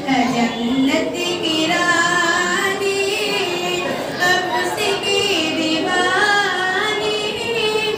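A young woman singing a naat, an Urdu devotional poem in praise of the Prophet, solo into a microphone, in long held notes that glide and waver in pitch.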